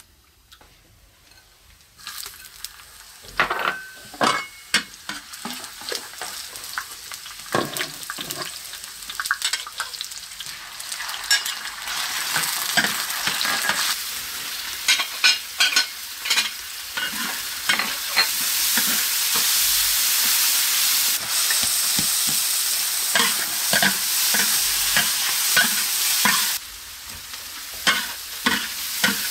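Green vegetables sizzling in a large wok as they are stir-fried, with a metal spatula scraping and knocking against the pan. The sizzle starts about two seconds in and gets louder around the middle.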